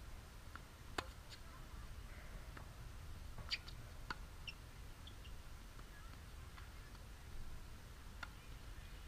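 Tennis ball being struck by rackets and bouncing on a hard court: a few sharp pops a second or more apart, the strongest about a second in, over a low wind rumble.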